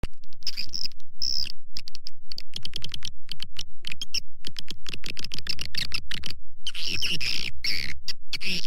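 Recorded swiftlet lure call, the outside sound of a swiftlet nest house, played to draw edible-nest swiftlets in: fast chirping and twittering over an even pulsing of about four beats a second, busier and brighter near the end.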